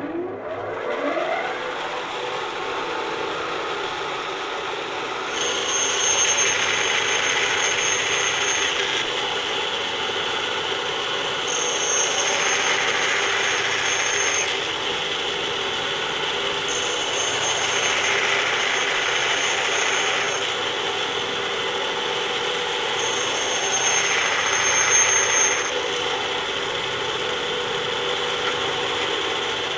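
Electric saw starting up, its motor rising in pitch over the first second, then running steadily. It has four louder, harsher stretches of a few seconds each.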